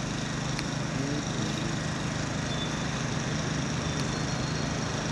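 Steady background noise of a large outdoor crowd standing quietly, over a constant low hum, with a couple of faint clicks.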